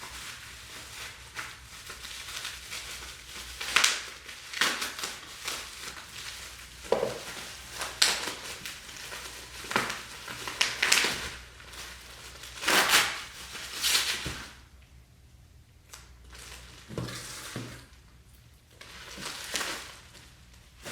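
Packing material being crumpled and pulled away while unwrapping a parcel: irregular crinkling and rustling in uneven bursts, with a quieter lull about three-quarters of the way through.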